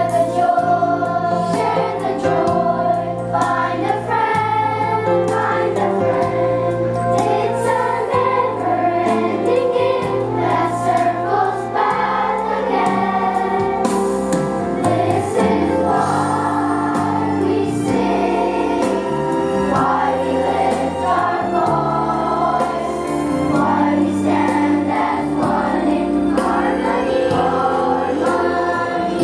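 Children's choir singing over an instrumental accompaniment with sustained low bass notes that change every second or two.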